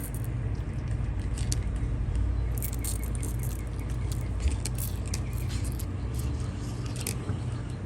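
Scattered light clicks, rattles and scraping of hands and tools handling metal fittings, over a steady low rumble.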